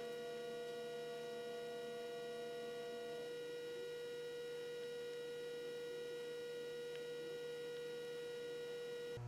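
A steady electrical hum: one constant tone with fainter overtones above it, and a second, slightly higher tone that drops out about three seconds in. It cuts off abruptly just before the end.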